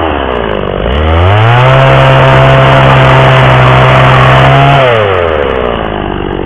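Stihl two-stroke chainsaw idling, then revving up to full throttle about a second in and cutting through a board of OSB. It drops back to idle about five seconds in.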